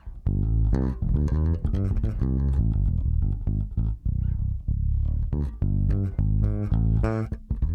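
Electric bass guitar playing a line of plucked notes through an Ampeg SGT preamp with its optical compressor turned up to about 3 o'clock. The sound is over-compressed: the notes sit at nearly the same loudness, and digging in changes only the tone, not the volume.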